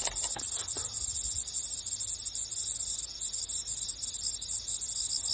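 Steady, high-pitched insect chorus, a dense unbroken trilling, with a few faint knocks in the first second.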